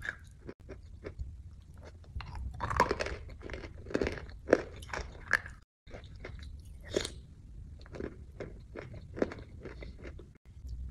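Chewing on something hard and crunchy taken from a spoon: a run of sharp crunches, loudest from about two to five seconds in and again twice later.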